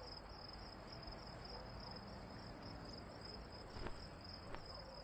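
Crickets chirping steadily, a high rapid trill at two pitches over a faint low hum, with two faint clicks about four seconds in.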